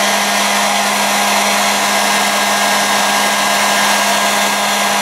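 Hot air gun running steadily: a constant rush of blown air with a steady low hum, heating heat-shrink tubing over soldered wires.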